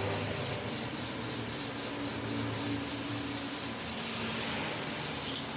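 Aerosol spray-paint can hissing steadily as it sprays a silver metallic base coat onto a motorcycle wheel rim.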